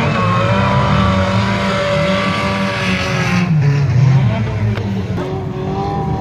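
Engines of several banger-racing stock cars running and revving together, their pitches overlapping and rising and falling.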